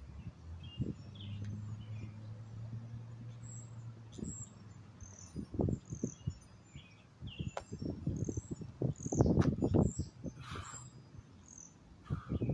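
Birds chirping over a low hum for the first few seconds. From about halfway, a run of short thuds and hard breaths from a man doing burpees on gravel, loudest about three-quarters of the way through.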